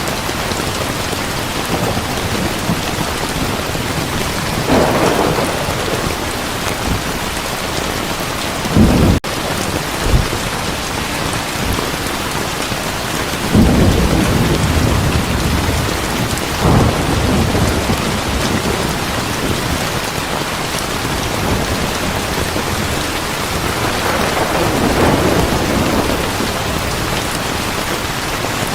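Heavy rain pouring steadily, with thunder rumbling several times. The strongest low booms come about 9 and 14 seconds in, and softer rolls come around 5, 17 and 25 seconds in.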